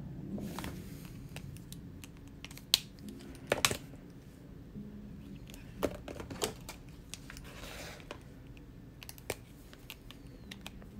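Desk handling sounds: a few sharp clicks and taps as pens are picked up and set down, with soft paper rustles as the sketchbook is moved.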